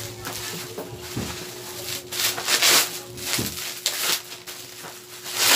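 Bubble wrap crinkling and rustling as it is pulled off a cardboard box, in uneven bursts. The loudest bursts come about two to three seconds in and again at the end.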